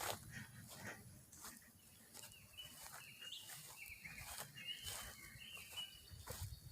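Faint bird chirping, a run of short high chirps from about two seconds in until near the end, over scattered soft clicks and knocks.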